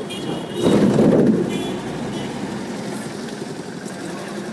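Traffic noise heard from a moving car: steady engine and road noise, with a louder swell lasting under a second about a second in.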